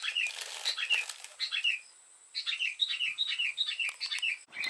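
A small songbird chirping: runs of quick, high, short chirps, each falling in pitch, with a pause about two seconds in. A brief rustle in the first second.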